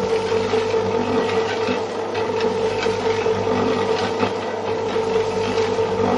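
A small geared electric motor running steadily: a constant whine over a grainy, gear-like rattle.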